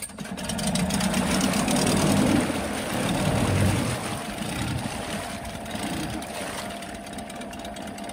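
A 2006 Honda 8 hp four-stroke two-cylinder outboard, freshly serviced, catches and runs in a test barrel of water. It runs faster and louder for the first few seconds, then settles to a lower, steady speed toward idle. It is running on pre-mixed two-stroke fuel, which makes it smoke.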